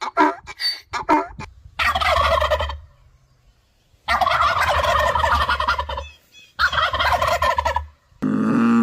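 An animal calling: a run of short, quick calls, then three long harsh calls, the middle one about two seconds long. A lower, steadier call begins near the end.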